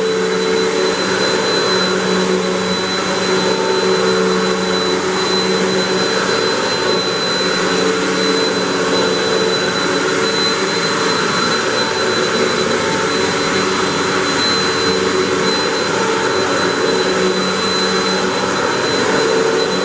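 Hoover WindTunnel 3 Pro Pet upright vacuum running steadily with its brush roll spinning, with a steady high whine over the motor and airflow noise as it cleans carpet.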